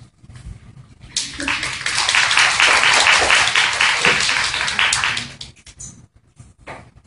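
Audience applauding: many people clapping at once, starting about a second in, holding for about four seconds, then dying away to a few last claps.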